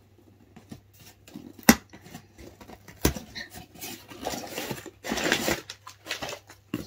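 A small cardboard shipping box being handled and opened by hand: a couple of sharp taps or knocks, the loudest one nearly two seconds in, then rustling and scraping of cardboard and packaging from about four to five and a half seconds in.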